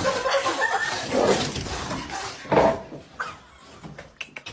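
A pet animal crying out in short, ragged outbursts, loudest about one and two and a half seconds in, then fading toward the end.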